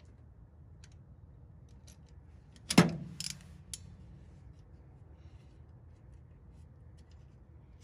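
A valve spring compressor and metal parts on a Ford Model A engine's valve springs. There is one sharp metallic clank with a short ring about three seconds in, followed by a few faint clicks and scrapes.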